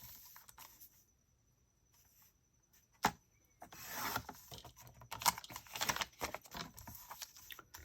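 Paper being handled and shuffled on a craft table: scratchy rustling with scattered sharp taps and clicks, after a single click about three seconds in.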